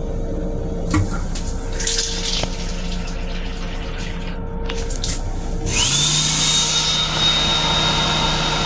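Water runs from a train restroom's sensor faucet into a sink. Almost six seconds in, an electric motor whirs up to a steady high whine with rushing air, from the sink unit's built-in hand dryer. It winds down at the very end.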